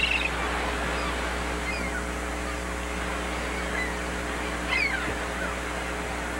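Harbour ambience: a steady low hum under an even wash of noise, with a few short, high, falling bird calls now and then, the loudest about five seconds in.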